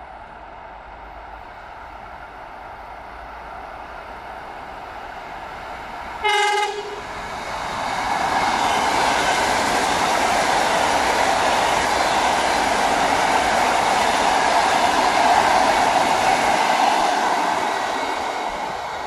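Electric multiple unit train (ED4M) sounding one short horn blast about six seconds in, then passing by with a steady rush of wheels on rails that builds up, holds for several seconds and fades near the end.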